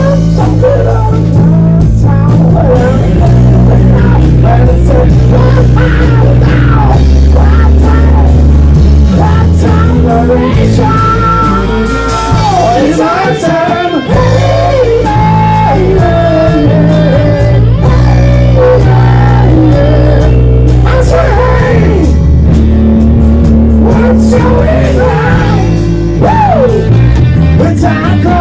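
Rock band playing live: guitar and bass under a singing voice, with the low bass dropping out briefly about halfway through.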